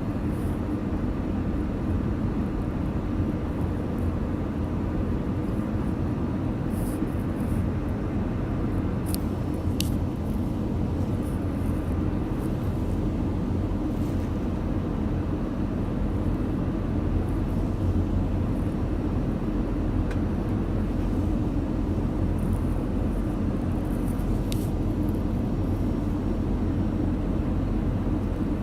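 Steady cabin drone of an Airbus A318 airliner in flight on approach, engine and airflow noise heard from inside the passenger cabin, with a faint hum over it. A few brief clicks come through a third of the way in and again near the end.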